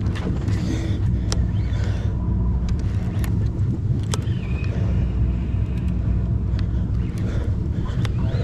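Sportfishing boat's engine running steadily, a continuous low drone, with a few light clicks over it.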